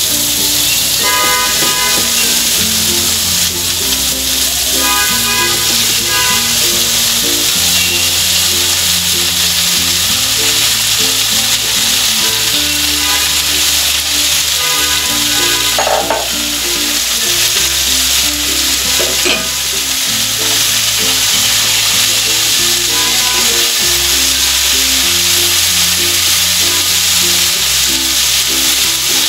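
Chopped coriander leaves sizzling in hot oil in a frying pan as they are stirred with a wooden spatula, with a couple of knocks about halfway through. Background music plays throughout.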